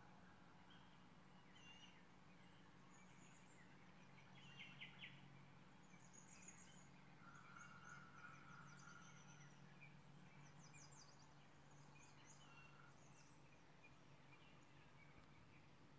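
Near silence: faint room tone with a low steady hum and scattered faint high bird chirps in the background.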